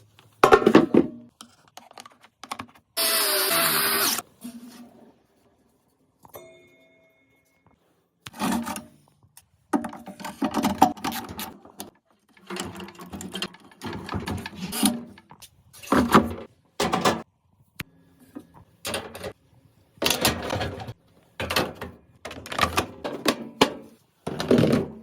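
Irregular knocks, clunks and clatter of tools on washing machine parts during drum bearing replacement, in uneven bursts with short pauses. A steady hissing burst lasts about a second near the start.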